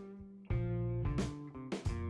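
Background instrumental music: a plucked guitar melody over a steady beat.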